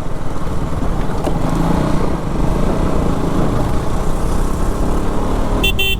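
KTM RC 200's single-cylinder engine running as the bike is ridden, heard as a steady rumble and rush of noise. A brief high-pitched tone sounds near the end.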